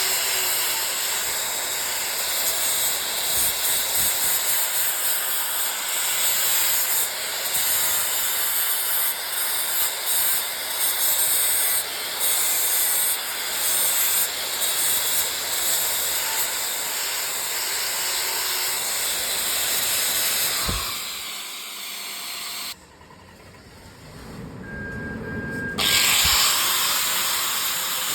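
Electric arc welding on a steel excavator arm: a steady, crackling hiss. It breaks off about 23 seconds in and starts again about three seconds later.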